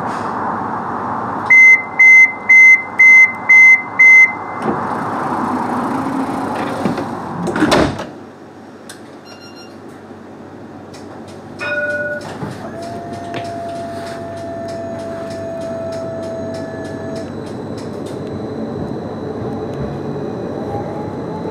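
Tram at a stop: six loud, evenly spaced electronic beeps warn that the doors are closing. About eight seconds in the doors shut with a thump, and the background drops. Later a short tone sounds, and near the end the electric traction motor whine rises in pitch as the tram pulls away.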